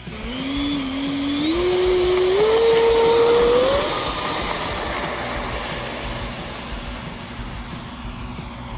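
Electric ducted fan of an E-flite 70mm F-16 model jet spooling up in steps to a high whine on the takeoff roll. It then holds a steady high-pitched whine that fades as the jet climbs away.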